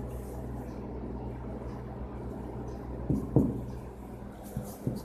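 Marker pen scratching faintly on a whiteboard over a steady low electrical hum, with a couple of brief low knocks about three seconds in and again near the end.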